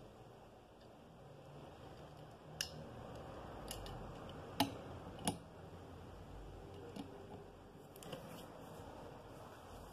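A handful of sharp little clicks and taps, the loudest two about halfway through, as 1/64-scale diecast model cars are handled and set down on a clear plastic display stand, over a faint steady hiss.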